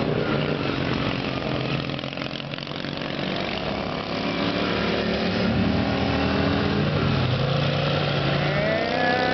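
Racing lawn tractor engines running, their pitch rising and falling, with one engine climbing in pitch near the end.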